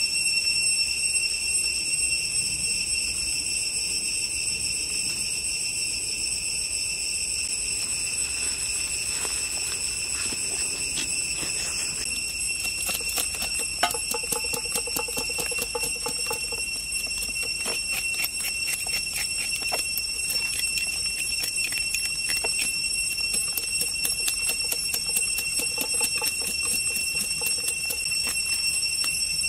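Steady high-pitched drone of forest insects. From about halfway through, many quick clicks and rustles of handling are heard on top.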